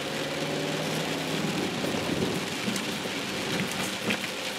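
Rain pattering on a car's roof and windscreen, heard from inside the cabin, with the car's engine running low underneath.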